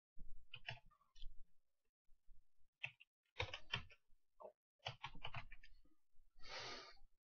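Computer keyboard keys clicking in several quick runs of keystrokes as a word is typed, with a short breathy hiss near the end.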